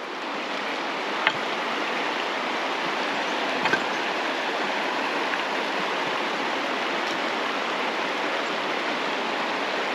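Shallow creek water running steadily over cobbles, with two faint clicks, one about a second in and one near four seconds.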